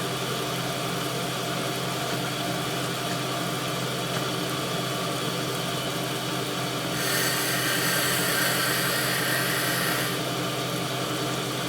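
Cylindrical grinder running steadily during a coarse wheel dressing, its motor and spinning wheel making a steady hum with several fixed tones. From about seven to ten seconds in, a brighter hiss is added over the hum, as the dresser works across the wheel face.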